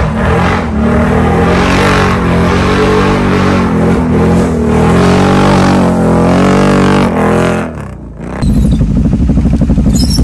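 ATV engine running under changing throttle, its pitch rising and falling, then dropping away about eight seconds in. A steady, rapidly pulsing engine note follows right after.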